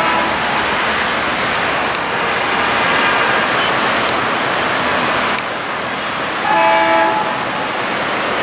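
ALCo diesel locomotive engine working hard as the train approaches, a loud steady roar of engine and exhaust. A short multi-tone horn blast sounds about two-thirds of the way through.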